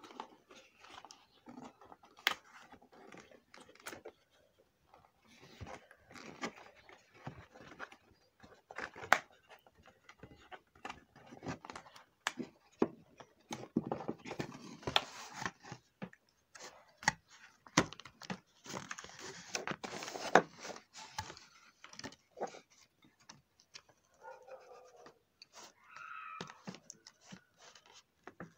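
Doll packaging being handled and taken apart: cardboard backing card and plastic pieces scraping, rustling and tearing, with many sharp clicks scattered throughout and scissors at work near the end.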